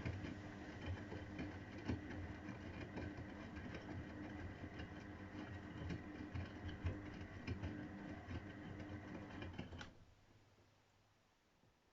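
AEG Öko-Lavamat 693 front-loading washing machine running in a 95 °C boil wash: the drum motor hums steadily with light rattling and clicking, then stops abruptly about ten seconds in, leaving near quiet.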